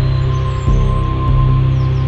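Background music with sustained tones.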